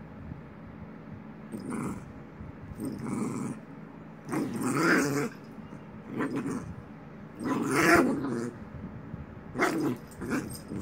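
Maltese puppy play-growling in short bursts while mouthing and pawing at a person's hand; the longest, loudest growls come about four and eight seconds in.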